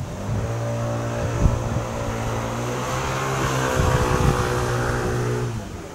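A steady engine drone with a low hum and many overtones, swelling a little in the middle and stopping after about five and a half seconds.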